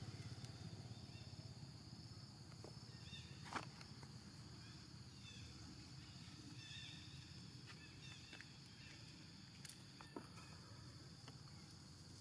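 Near silence: quiet outdoor background with a faint steady high hum, a few soft chirps and light clicks, the sharpest about three and a half seconds in.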